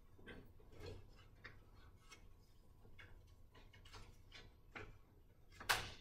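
Faint, irregular small clicks and taps, roughly two a second, with one sharper, louder click near the end.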